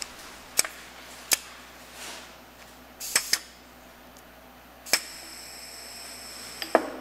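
Sharp clicks of a pneumatic gripper unit being worked. About five seconds in, a loud click is followed by a steady hiss of compressed air as the gripper cylinder drives down, ending with another click near the end.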